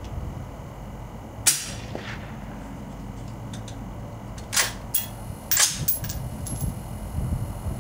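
Gunshot from an AR-15 carbine fitted with a Gemtech G5 suppressor, a single sharp crack about a second and a half in. It is followed by several shorter cracks and clacks between about four and a half and six seconds.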